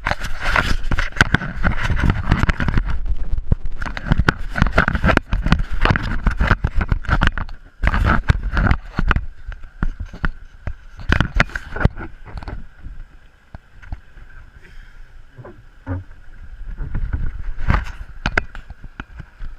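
Kayak out on open water: paddle strokes splashing and knocking against the boat, over heavy rumble on the microphone. The strokes are busiest in the first half and again near the end, with a steady high tone underneath.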